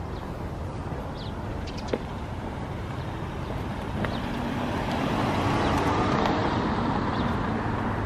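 A car driving past close by, its tyre and engine noise swelling from about four seconds in, loudest a little past the middle, then easing off, over a steady low street rumble.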